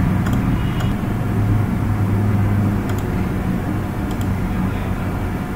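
Steady low background hum from the recording microphone's surroundings, with a few faint, sharp computer-mouse clicks as components are ticked and a dropdown is opened.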